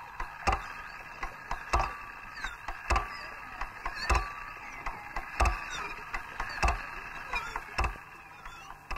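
Soundtrack ticks: a sharp knock about every 1.2 seconds with fainter clicks between them, over a steady hum and old optical-film hiss.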